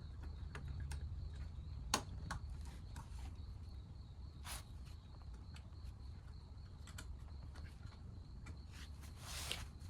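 Faint handling noise of plastic clips and a sensor connector being refitted: scattered light clicks with one sharp click about two seconds in, and a couple of soft rustles, over a low steady hum.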